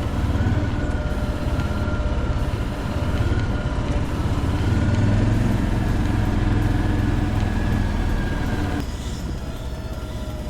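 A vehicle in motion: a steady low rumble with a faint whine that slowly rises and falls. A little before the end the rumble drops away suddenly to a quieter sound.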